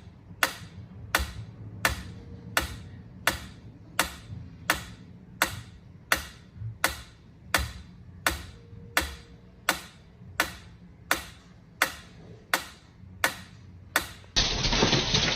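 Sharp ticks at a steady beat, about three every two seconds, each dying away quickly. Just before the end they stop and a louder, noisy passage with a gliding voice-like sound cuts in.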